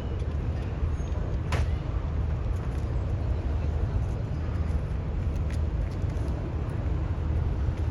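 Steady low rumble of a freight train rolling past, with a sharp click about a second and a half in.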